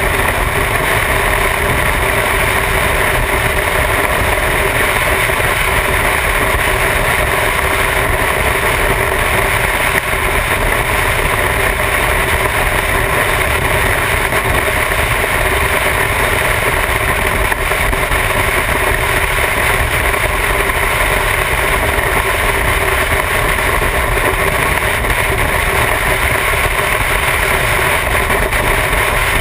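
Motorcycle running at a steady highway cruising speed, the engine drone mixed with heavy, constant wind rush over the camera's microphone.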